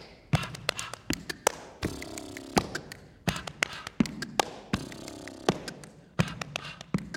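Body percussion: a brisk rhythm of sharp claps, slaps on the body and stamps of the feet, played by one performer.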